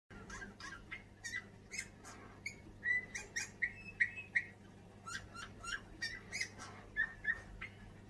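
Male Eurasian bullfinch singing: a string of short, soft whistled notes mixed with creaky, clicking sounds, with a quick run of whistles in the middle.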